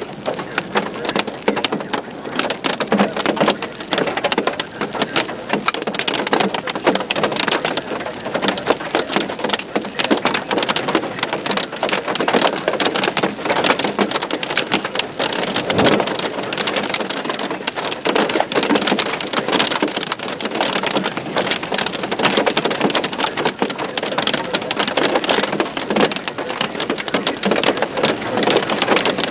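Hailstones pelting down in a dense, unbroken clatter of many small impacts, steady in level throughout.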